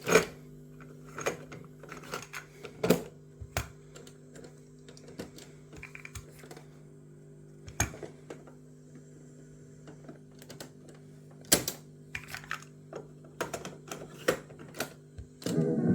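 Irregular light clicks and taps, a dozen or more at uneven spacing, over a steady low electrical hum.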